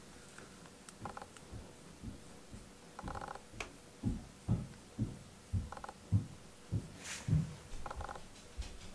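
A DSLR camera's lens autofocus motor whirring in several short bursts, the focus noise the uploader calls noisy ("jiko-jiko"). Beneath it, a run of soft low thumps about every half second while a rubber grooming glove strokes a cat's fur.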